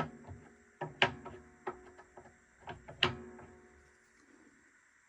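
Sharp wooden clicks and knocks as the wooden tuning key is fitted onto the lyre's pegs, with the strings ringing faintly after the knocks; the loudest knocks come about a second in and about three seconds in, and the sound dies away near the end.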